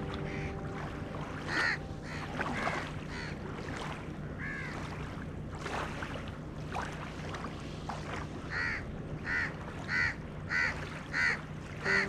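Crows cawing: a few scattered caws, then a quick run of six caws over the last few seconds, over the soft wash of small waves lapping the shore.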